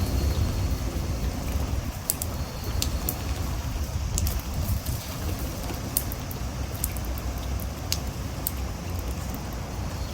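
Typhoon wind and rain: gusty wind buffeting with a low rumble, over a steady wash of rain and scattered sharp ticks of drops striking.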